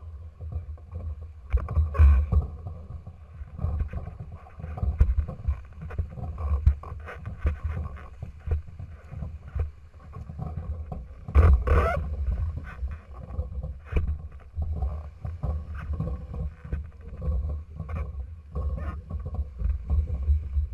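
Water splashing and sloshing around a small trimaran's hulls and the waders' legs as the boat is pushed out of the shallows onto the sand, over a low buffeting rumble, with irregular knocks through the hull and one louder burst about halfway through.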